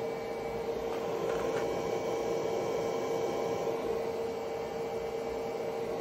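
EverStart 10 A smart battery charger humming steadily while charging a 12 V lithium iron phosphate battery, a high-pitched tone held level over a fainter electrical hum.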